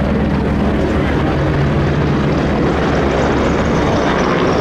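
Helicopter flying, a steady rotor beat with engine noise.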